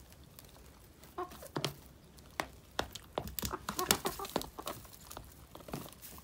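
Hens (a silkie and a Cochin among them) pecking corn and crumble feed out of a plastic tub: many quick, irregular beak taps, busiest about three to four seconds in, with a few soft clucks.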